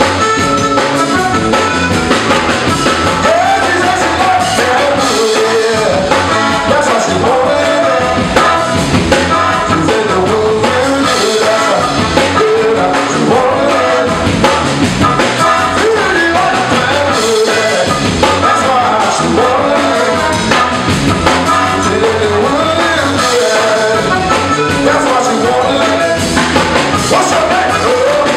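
Live band playing a song: a man singing over electric bass guitar, keyboard and drum kit.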